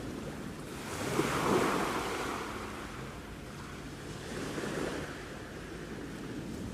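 Sea waves washing onto the shore, one wave breaking and swelling about a second in and a smaller one near the end, with some wind on the microphone.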